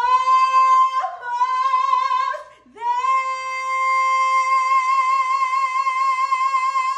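A woman singing unaccompanied, belting a high held note for about two seconds, breaking briefly, then holding a long note with vibrato for about four seconds.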